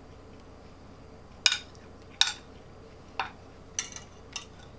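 Eating utensils clinking against a dish, five light, sharp clicks a second or less apart.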